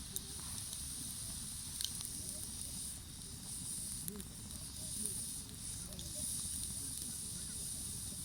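Wood campfire burning with a steady hiss and a few sharp crackles, about four scattered through it.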